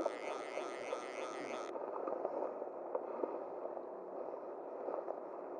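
Steady rushing of a small river's flowing water, with a brighter hiss over it for about the first second and a half.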